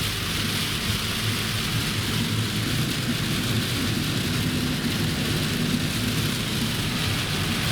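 Steady rushing road noise inside a moving vehicle, with a constant low drone underneath.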